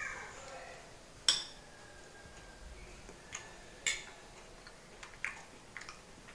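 A metal spoon clinking against a small plate while food is scooped and eaten: a few sharp, short clinks, the loudest about a second in and another near four seconds, with fainter taps later.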